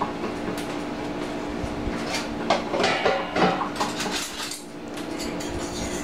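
Dishes and utensils clattering and knocking together as items are pulled out of a crowded dish drying rack, a quick run of rattles through the middle, over a steady low hum.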